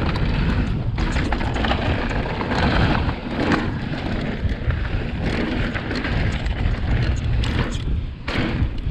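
2020 Vitus Sommet CRS mountain bike riding fast down a dirt singletrack: tyres rolling and crunching over the dirt, wind rumbling on the microphone, and irregular knocks and rattles from the bike over bumps.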